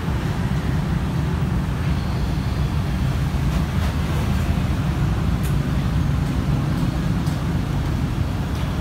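Steady low rumble of road traffic, with a few faint ticks.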